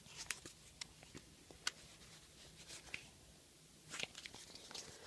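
Faint, scattered small clicks and ticks of objects being handled, at irregular intervals, with a short cluster about four seconds in.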